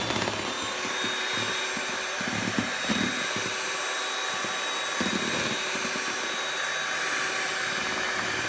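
Electric hand mixer running steadily with a thin high whine, its two wire beaters whipping egg whites to stiff peaks in a plastic tub, with uneven low knocking underneath.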